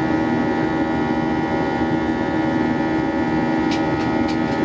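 Steady in-cabin drone of an Airbus A320-232's IAE V2500 turbofan engines in flight: a loud hum made of many steady tones over a rushing noise. A few short, high clicks come near the end.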